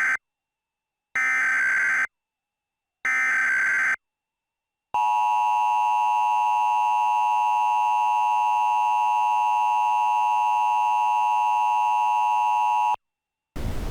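Emergency Alert System header tones: the end of one short data burst, then two more of about a second each, about a second apart. Then comes the EAS attention signal, a steady two-tone alert held for about eight seconds before cutting off.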